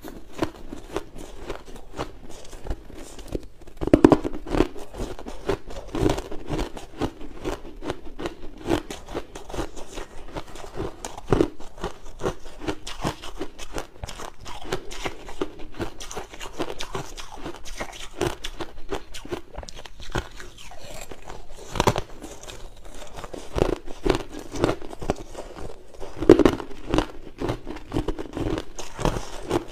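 Close-miked mouthfuls of crushed ice being bitten and chewed: a dense, continuous run of sharp crunches. The loudest bites come about four seconds in and again near the end.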